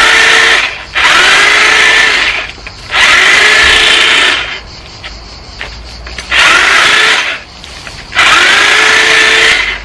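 A handheld corded electric power saw is switched on and off in short bursts. It is already running at the start and starts four more times, about a second and a half each, with a rising whine at each start as the motor spins up to speed.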